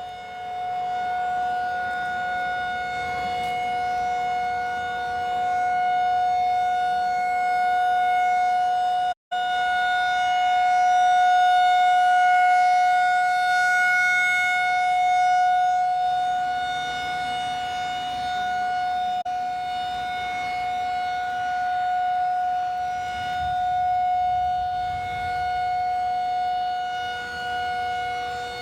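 Outdoor civil-defense warning siren sounding a steady two-note chord, its loudness swelling and fading slowly. The sound drops out briefly about nine seconds in.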